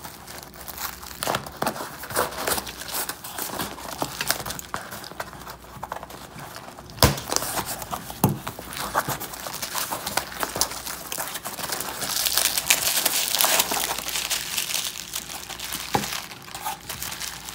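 Scissor blades cutting and scraping packing tape on a cardboard box, with cardboard rustling as the flaps are worked open and a sharp knock about seven seconds in. Later comes a louder stretch of crinkling as the bubble-wrapped motor is pulled out of the box.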